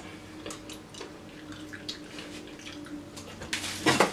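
Quiet, wet chewing of Bean Boozled jelly beans: scattered small mouth clicks over a faint steady hum. Near the end comes a short, louder noisy rush.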